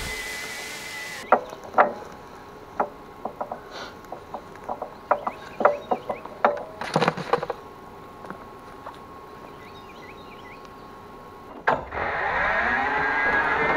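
Rubber-booted footsteps through dry cut grass and brush, a string of sharp snaps and crackles, after a steady hiss that cuts off about a second in. About twelve seconds in there is a click, then the Greenworks Pro 60V electric zero-turn mower's motors spin up with a rising whine.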